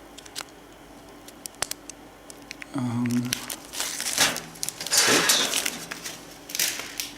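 Plastic packaging crinkling and rustling as it is handled, in several bursts in the second half after a few small clicks.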